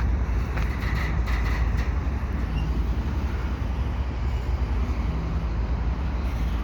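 A slow-moving freight train of double-stack intermodal well cars rolling past, giving a steady low rumble with a few light squeaks and clicks about a second in.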